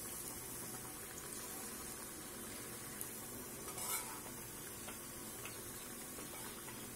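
Batter-coated boiled potatoes deep-frying in hot oil in a kadhai, a steady sizzle. A couple of light clinks from a spoon and steel bowl come about three and four seconds in.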